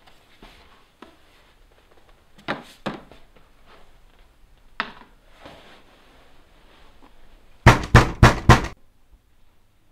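Knocking on a door: two knocks about two and a half seconds in, a single knock near five seconds, then a louder run of four quick knocks near the end.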